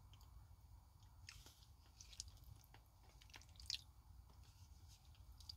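Faint chewing and mouth smacks of someone eating soft stewed cabbage and chicken, with a few soft clicks, the sharpest about three and a half seconds in, over a low steady rumble.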